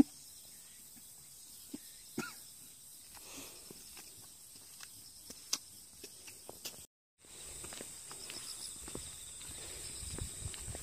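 Faint outdoor quiet with scattered small clicks and one short squeak about two seconds in. After a brief break, faint footsteps of a person and a puppy walking on an asphalt road.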